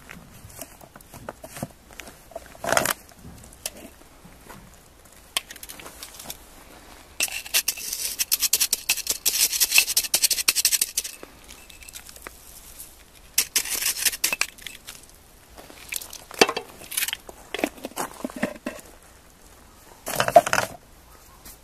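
Seasonings being added to a pot on a camp stove: scattered clicks and knocks of containers and utensils. About seven seconds in comes a few seconds of dry, granular rustling as sugar is sprinkled in, and near the end a short, fuller knock.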